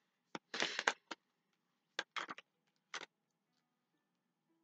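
Tarot deck being shuffled by hand: a few short card flicks and snaps, some in quick clusters, over the first three seconds.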